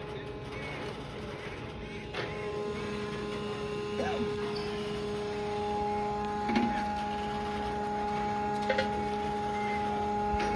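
A steady motor hum made of several held tones, a lower one joining about three seconds in and a higher one about six seconds in, with a few faint clicks.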